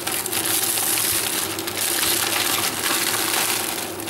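Water in a stainless steel pot on an electric hot plate hissing steadily as it heats toward the boil, with several short crackles of plastic wrapping and dry noodles being handled.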